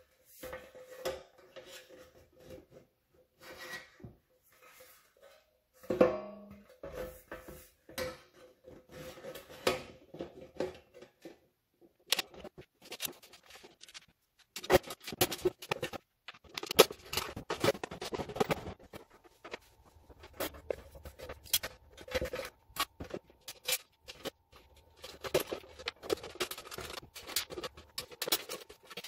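Corrugated galvanized steel panels of a Sunnydaze raised garden bed being handled and slid into a corner bracket: sheet metal scraping and rubbing, with scattered sharp metallic clicks and taps that come thicker and louder in the second half.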